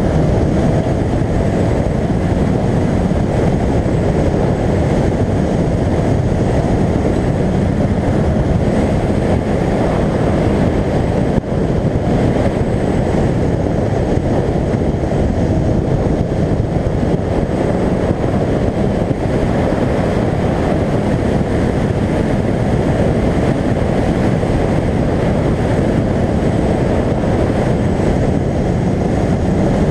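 Car driven hard around an autocross course, heard from a camera mounted outside the body: the engine's running is half buried under a loud, steady rush of wind on the microphone.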